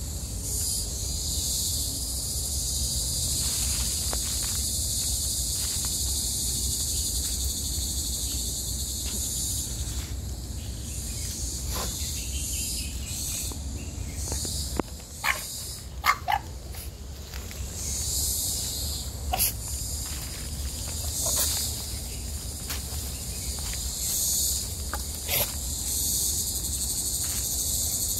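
Loud cicada chorus: a steady, high-pitched drone that swells and fades in pulses. A few short, sharp sounds stand out over it in the second half, the loudest about halfway through.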